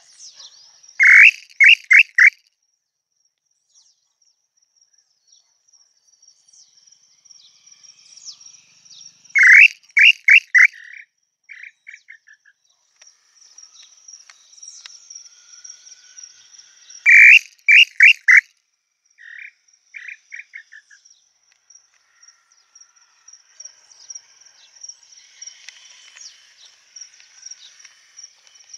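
Tataupa tinamou calls: three times, a loud whistled note followed by a quick run of three or four shorter notes, each followed a couple of seconds later by a fainter, quicker run of notes. A steady high insect hum runs behind.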